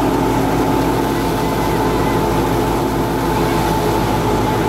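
Tractor-driven Al-Shehbaz wheat thresher running under load as straw is fed in: a steady machine drone with a constant whine over the tractor engine's low rumble.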